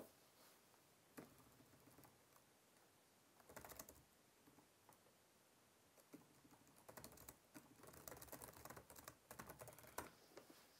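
Faint typing on a keyboard: a few separate key clicks, a short burst about three and a half seconds in, then a quick, steady run of keystrokes from about six and a half to ten seconds in as a line of text is typed.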